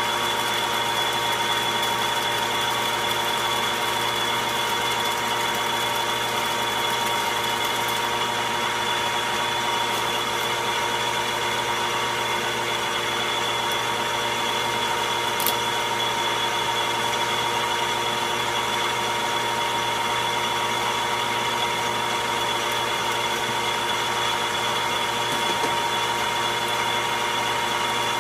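Logan metal lathe running steadily under power, a constant machine hum with fixed whining tones. A single sharp click comes about halfway through.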